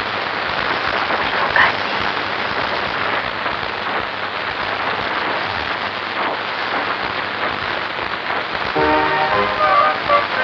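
Steady hiss of falling, splashing water. Near the end music comes in with a run of short, separate notes.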